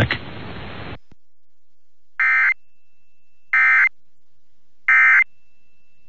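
Emergency Alert System end-of-message data bursts: three short, identical digital data bursts, evenly spaced about 1.4 s apart, signalling the end of the nationwide test alert. A faint hiss fades out about a second in, before the first burst.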